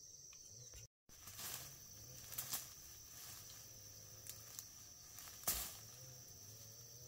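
Steady high-pitched drone of insects, with a few scattered sharp knocks and rustles. The loudest knock comes about five and a half seconds in. The sound cuts out completely for a moment about a second in.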